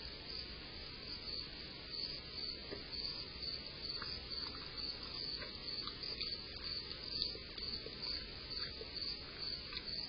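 Crickets chirping steadily in an even rhythm of a few chirps a second, with a few faint clicks here and there.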